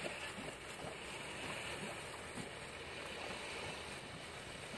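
Steady outdoor wind and water noise.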